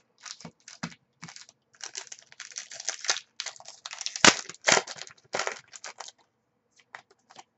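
Trading-card pack wrappers crinkling and being torn open while the cards are handled and flicked through, a quick run of rustles with one louder crack about four seconds in.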